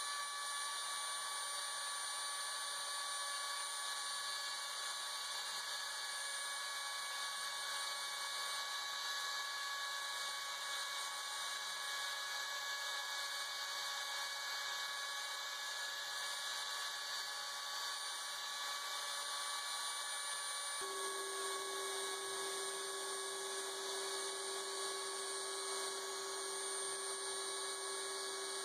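Homemade CNC router's spindle motor running with a steady high whine as its end mill works a white plastic plate. A lower steady tone joins abruptly about two-thirds of the way through.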